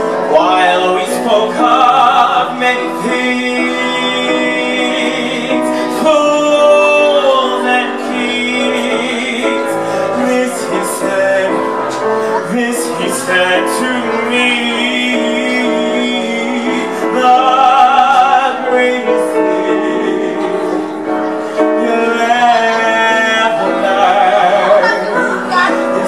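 Male singer singing live with long held notes and a wide vibrato, over piano accompaniment.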